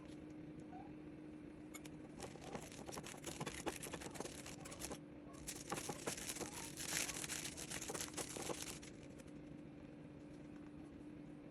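Crackly rustling with many small clicks for several seconds, pausing briefly midway, over a steady low hum: something being handled or crinkled at close range.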